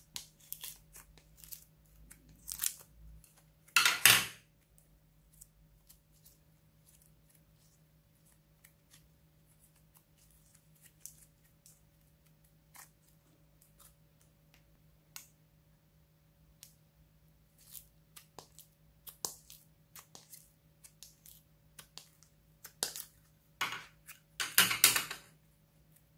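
Slime being peeled, pressed and stretched by hand: scattered sticky crackles and small pops, with two louder bursts, one about four seconds in and one near the end.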